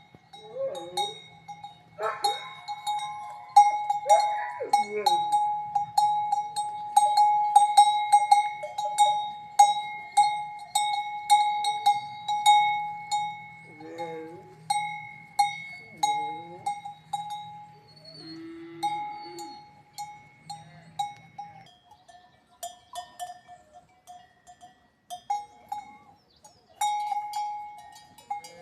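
A cowbell clanking over and over, several strikes a second, as the animal wearing it moves, with a few short animal calls, some falling in pitch, now and then.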